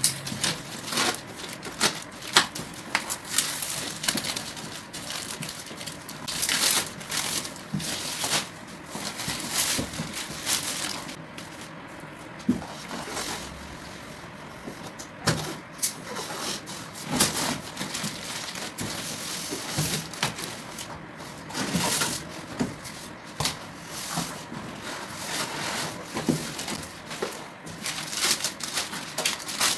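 Packaging being handled: irregular crackling and rustling of plastic wrap and cardboard, with scattered clicks and knocks.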